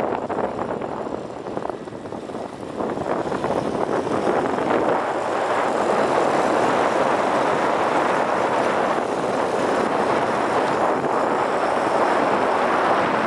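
Wind rushing over the microphone and road noise from riding a moving motorbike, growing louder about three seconds in and then steady.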